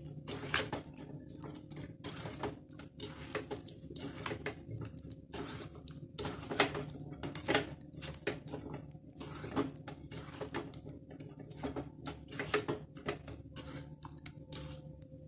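A hand squishing and mixing yogurt-soaked rice in a stainless steel bowl: irregular wet squelches and light clicks of fingers against the bowl, over a faint steady hum.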